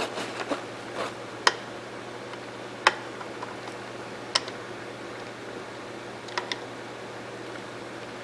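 Mossberg 464 lever-action rifle being handled for disassembly: a handful of sharp, irregular clicks and taps, the loudest about one and a half and three seconds in, with a close pair near the end.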